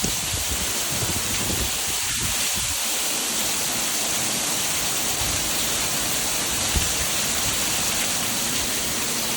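Heavy rain falling steadily in a storm, an even hiss, with low rumbling in the first few seconds.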